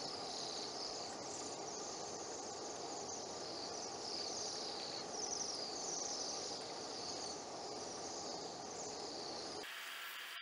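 A flock of Bohemian waxwings calling: many high, thin trills overlapping one another over a steady low background noise. The calls stop abruptly near the end, where the sound cuts to a plain hiss.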